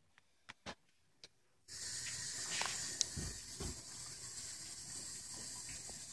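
Bathroom sink faucet starting up abruptly about two seconds in and then running steadily, the water pouring onto a pair of underwear held under the tap to soak them. A few faint clicks come before it.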